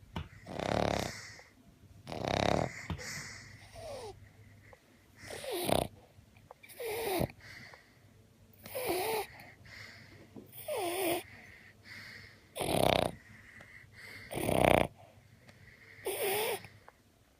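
Sleeping dog snoring in a regular rhythm, about one snore every two seconds. Several of the snores carry a thin wheezing whistle that wavers and falls in pitch.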